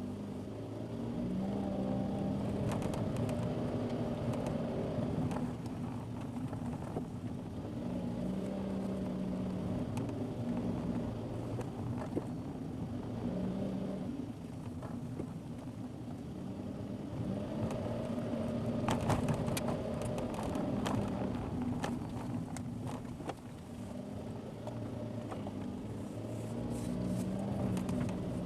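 A car's engine running as it drives, its pitch stepping up and down with speed, over tyre and road noise with scattered small ticks.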